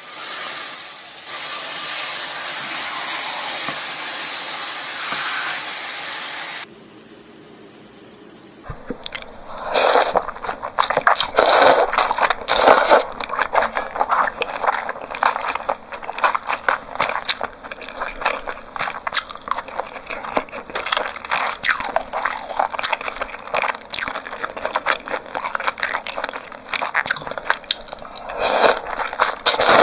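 Meat sizzling in a hot pan, a steady hiss that stops abruptly. After a short lull come close-miked eating sounds: biting and chewing grilled marinated meat in quick wet clicks and crunches, with a slurp of cold noodles near the end.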